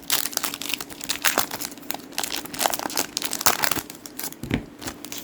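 1994 Select baseball card packs being torn open by hand, their wrappers crinkling in a quick, irregular run of crackles.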